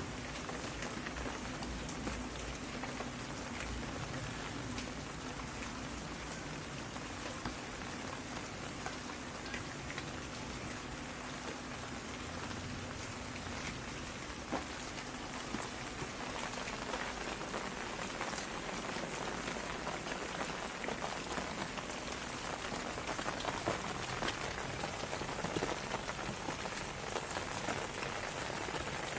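Steady rain falling on a surface, a dense patter of individual drops over an even hiss, growing a little heavier in the last few seconds.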